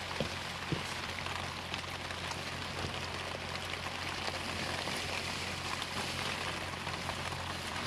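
Heavy rain falling steadily as an even hiss, with a few faint ticks and rustles as a wet tent is taken down.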